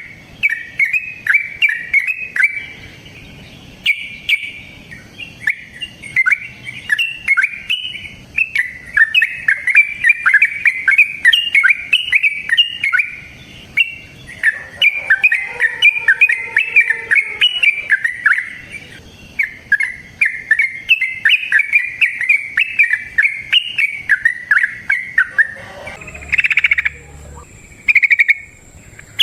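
Yellow-vented bulbul (trucukan) singing its long, rapid 'ropel' song: a near-continuous run of quick, bubbly chattering phrases.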